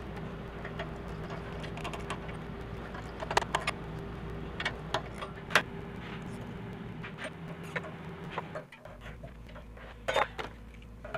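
Scattered metallic clicks and clinks of a socket wrench and extension working the carburetor mounting nuts on a small engine, over a steady low hum of shop background.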